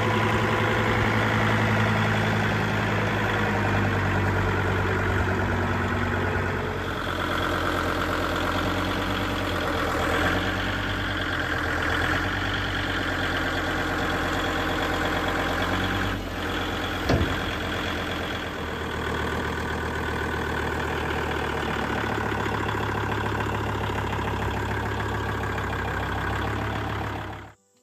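Kubota L3750 compact tractor's diesel engine running steadily while working its front loader, with one sharp knock about 17 seconds in. The engine sound stops abruptly near the end.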